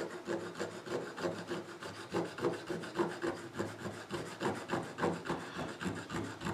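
Small needle file scraping on a lead toy cow figure in quick, short strokes, about three a second, shaping the metal by hand.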